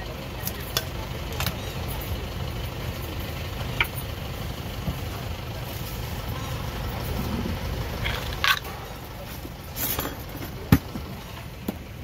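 Scattered clicks and knocks of a plastic spoon and seafood pieces against clay mortars, over a steady low rumble; one sharp knock about three-quarters of the way in is the loudest.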